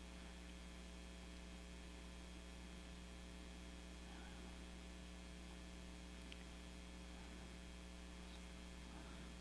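Near silence apart from a steady low electrical mains hum and faint hiss.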